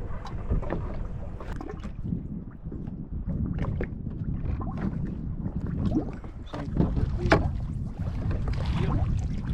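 Low rumble of wind buffeting the microphone on a small fishing boat on rough water, with scattered knocks and clatter throughout.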